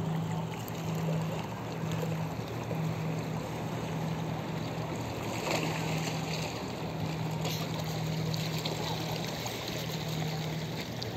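Lake water lapping and splashing against the rocks of a breakwater, with a steady low hum underneath that drops out briefly a few times.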